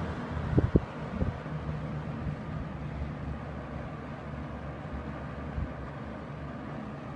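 Hunter model 11027 two-speed 20-inch box fan running on low speed, a steady motor hum with air rushing through the blades. The air noise eases over the first couple of seconds as it settles. A few light knocks come about half a second in.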